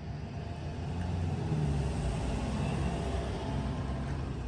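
A low background rumble with a hiss above it, swelling for a couple of seconds in the middle and then easing off again.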